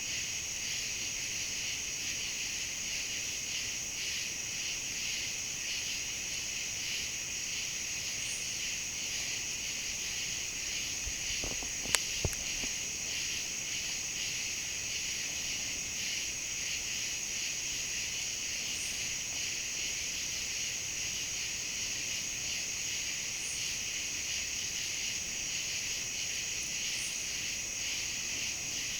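Steady chorus of night insects, crickets, filling the air with a continuous high trilling, with one sharp click about twelve seconds in and a smaller one just after.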